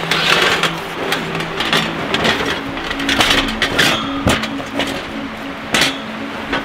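Rustling of a padded canvas carry bag and light clinks and knocks of a folding metal frame being packed into it, over a steady rush of creek water. Soft music comes in faintly about halfway through.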